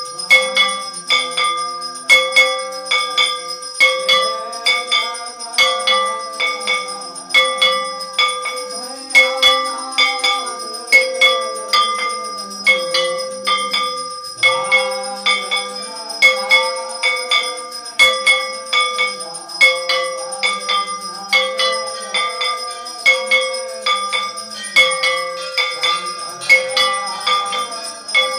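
Hanging flat metal temple gongs struck over and over, ringing in a steady rhythm about twice a second, with the metallic tone carrying on between strikes.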